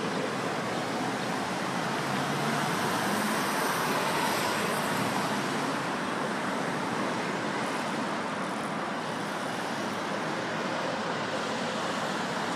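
Steady road traffic noise: an even hiss of passing vehicles that swells slightly a few seconds in, with no siren or horn.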